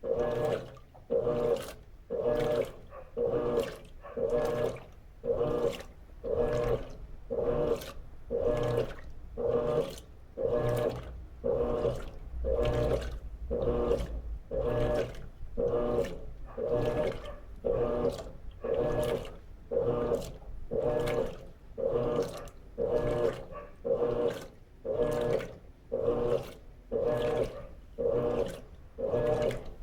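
Electrolux LT13B top-load washing machine agitating a load of sheets and towels, its impeller swinging back and forth about once a second. Each stroke brings a motor hum and a slosh of water.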